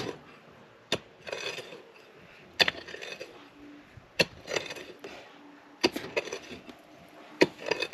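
Shovel blade striking into loose dirt, a sharp hit followed by a short scrape, about five times at fairly even spacing.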